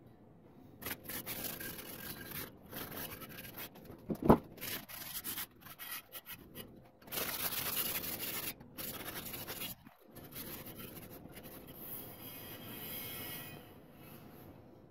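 Cloth rag rubbing over a bare steel wheel in irregular wiping strokes, degreasing it with panel wipe before paint. A single sharp knock comes about four seconds in.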